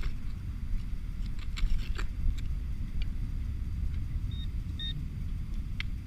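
Hand digger chopping and scraping into turf and soil, short scattered clicks over a steady low rumble. Two short high electronic beeps come near the end, about half a second apart.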